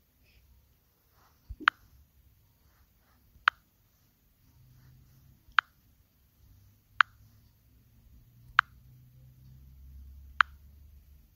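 Six sharp, short clicks, one every one and a half to two seconds.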